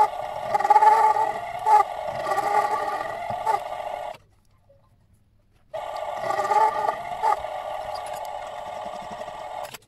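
Mini-lathe running while machining a steel screw: a steady motor whine with a rough, wavering edge. It stops abruptly about four seconds in, starts again about a second and a half later, and stops abruptly once more near the end.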